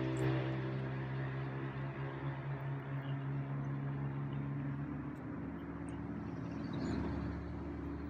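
Steady hum of an engine running, its tone shifting about five seconds in.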